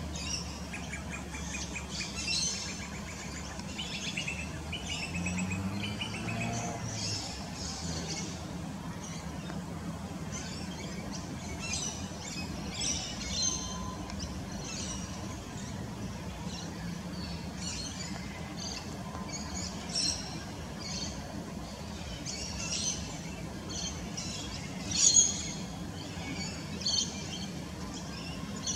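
Birds chirping and calling in short, high bursts throughout, with one louder call about 25 seconds in, over a steady low background hum.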